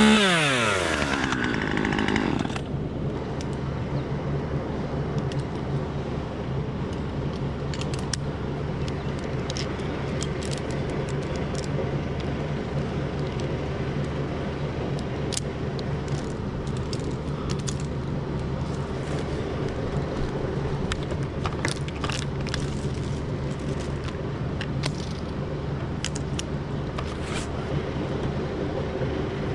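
Two-stroke chainsaw dropping off full throttle in the first second or two and then idling steadily, with scattered light clicks over it.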